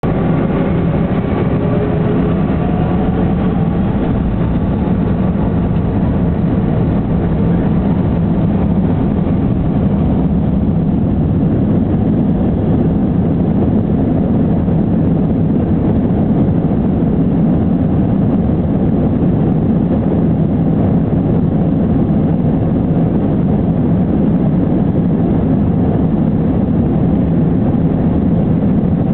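Airbus A319 jet engines heard from inside the cabin during the takeoff roll: a rising whine over the first few seconds as the engines spool up, then a steady loud rumble and rush of engine and runway noise as the airliner accelerates.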